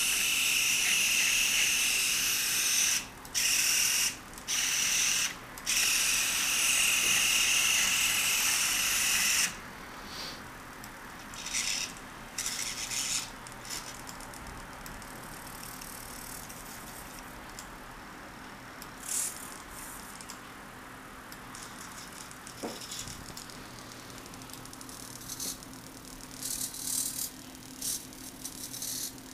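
Futaba S3003 hobby servos whirring as they drive the robot arm and rover base. A loud, high-pitched stretch of whirring lasts about the first nine seconds with three brief pauses, then only short, softer whirs come now and then.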